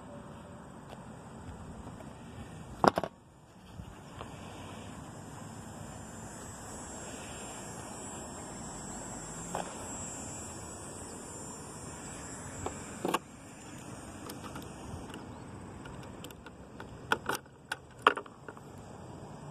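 Sharp clicks of handling an electric scooter over a steady outdoor background hiss: one loud click about three seconds in, another later, and a quick run of clicks near the end as the key goes into the ignition lock and is turned.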